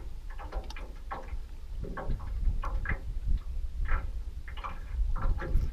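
Small waves lapping and slapping against an aluminum boat hull in irregular light knocks, two or three a second, over a low rumble of wind on the microphone.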